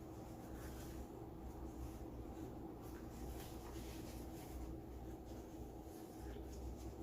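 Faint, scattered soft clicks and scratchy crackles over a steady low hum.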